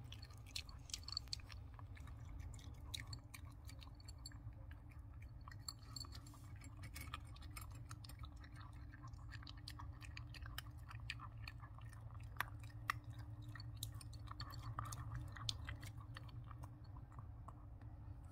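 Shih Tzu chewing and crunching dry kibble from a ceramic bowl: irregular small crunches and clicks throughout, over a faint steady low hum.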